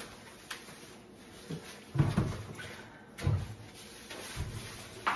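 Kitchen handling noises: a few dull knocks and bumps about a second apart, with a sharper click near the end.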